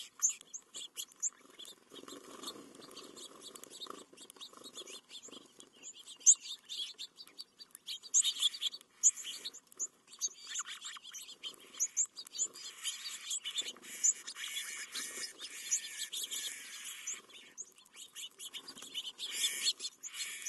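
A flock of house finches and white-crowned sparrows feeding on seed on gravel: frequent short, high chirps scattered throughout, over light clicks and scratches from pecking and hopping.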